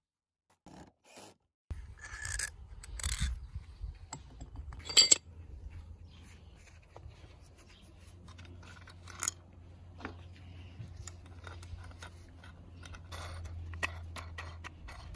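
Wooden bookbinder's plough being handled and assembled: scraping and rubbing of wood and metal parts with scattered sharp clicks, the loudest about five seconds in. Under it runs a low steady rumble.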